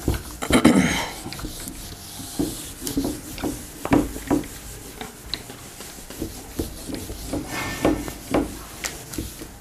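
A whiteboard being wiped clean by hand, a run of repeated rubbing strokes across its surface.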